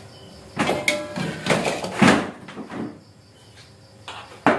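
Red plastic chairs being shifted about on a tiled floor: a run of clattering knocks and scrapes, then a single sharp knock near the end as a chair is set down.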